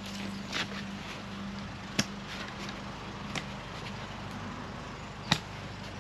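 Canvas tent fabric being handled and spread out on grass, with two sharp clicks, one about two seconds in and one about five seconds in, over a steady low hum.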